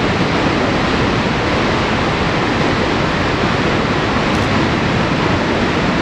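Niagara Falls: a huge volume of water pouring over the brink and crashing into the basin, a loud, even rush of noise that does not change.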